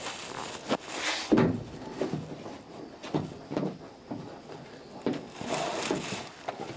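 Irregular wooden knocks and scraping as a steamed oak rib is pressed down against the planking of a clinker dinghy hull and clamped at its top, the loudest knock about a second in.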